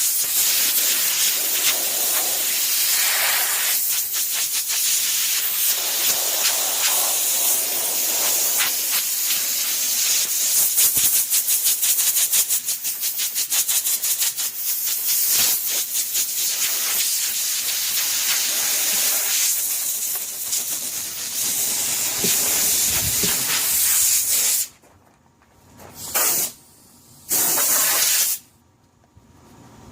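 Compressed-air blow gun hissing steadily as air is blasted at carpet-covered speaker cabinets, with a rapid scratchy scrubbing mixed in partway through. Near the end the air cuts off and starts again in two short blasts.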